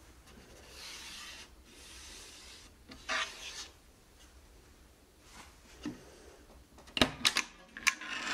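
Plywood rubbing and scraping softly a few times, then a quick run of sharp clicks and wooden knocks about seven seconds in as the box's plywood front panel is pulled free of its metal catch.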